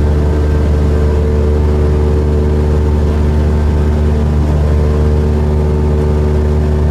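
Cessna 172R's four-cylinder Lycoming engine and propeller running steadily in flight, a loud, even low drone heard from inside the cabin.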